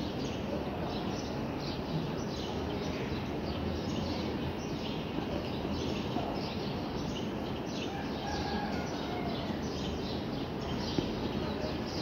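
Small birds chirping, many short high chirps repeating without pause, over a steady low background rumble.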